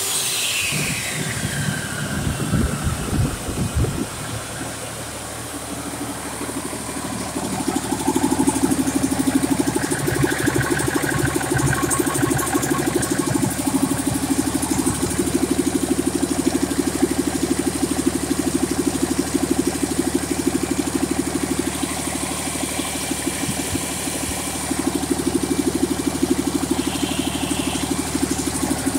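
Cummins ISC 8.3-litre inline-six diesel running on a test stand. A high whine falls away in pitch over the first two seconds while the engine runs unevenly, then it settles into a steady idle.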